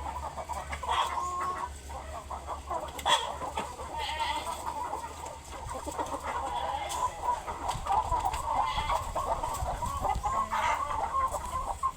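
A flock of chickens clucking, many short calls overlapping continuously.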